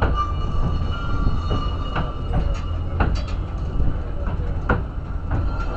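Cable-hauled incline railway car climbing its track: a steady low rumble with irregular sharp clacks and a faint steady whine.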